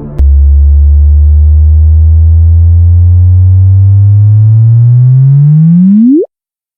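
Sonified space signal: a loud, low electronic tone with many overtones that rises slowly in pitch, then sweeps sharply upward in a chirp and cuts off suddenly about six seconds in.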